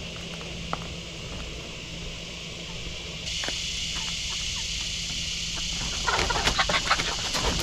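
Cicadas droning steadily at a high pitch; the drone grows louder about three seconds in. Near the end, chickens break into a burst of rapid clucking.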